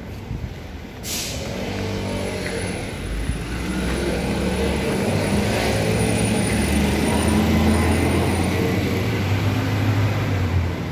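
A large truck's engine running close by, growing louder through the middle and easing off near the end, with a short hiss about a second in.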